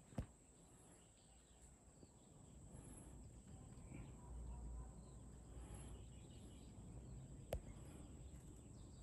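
Near silence: faint outdoor ambience with a low rumble and a steady thin high tone, broken by two sharp clicks, one just after the start and one near the end.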